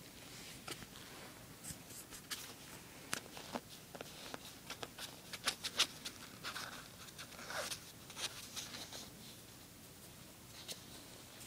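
A small pet scratching and scrabbling about, heard as scattered short scratches and sharp clicks, busiest in the middle few seconds.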